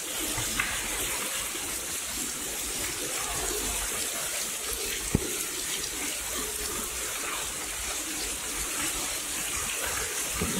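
Artificial rain from the Rain Room installation falling continuously as a steady downpour hiss, with one short knock about halfway through.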